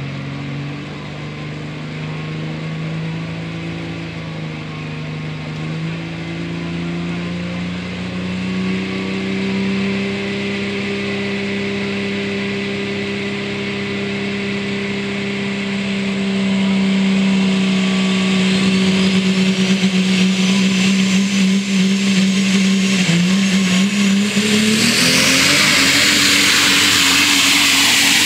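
Dodge diesel super stock pulling truck, a Cummins inline-six, revving up in steps at the start line and holding high rpm while a turbo whine climbs. About 25 s in the engine goes to full power with a loud rush as the truck launches and pulls the sled.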